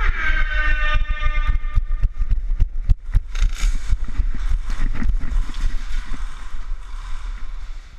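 A short, loud, pitched call at the start, falling slightly, then quick irregular footfalls and gear knocking as a player moves, over a steady low rumble of wind on the body-worn camera's microphone.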